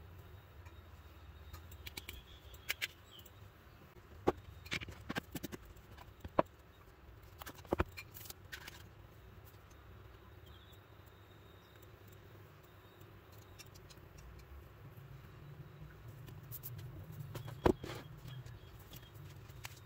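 Scattered light clicks and taps of a smartphone being handled and turned over in the hands, with a few sharper clicks, over a faint low hum.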